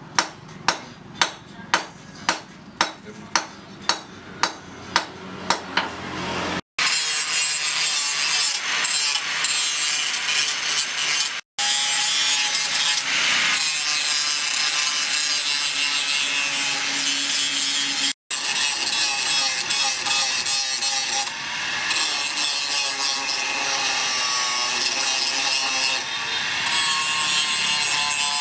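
Hammer blows on forged steel, about two a second, for the first six seconds or so. Then a steady abrasive grinding with a wavering motor whine, typical of an angle grinder working the steel of the tongs.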